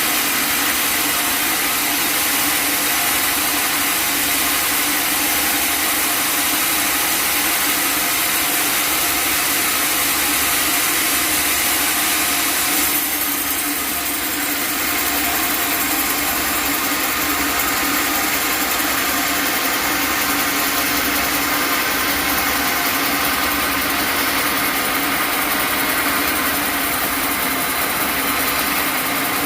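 Sawmill machinery running, a loud steady mechanical noise with a strong hiss. It shifts slightly about halfway through.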